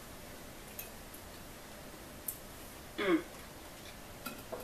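Light clicks and taps of a kitchen knife against a plastic cutting board and a ceramic plate while slicing cooked pork tenderloin, with one short, louder pitched sound about three seconds in.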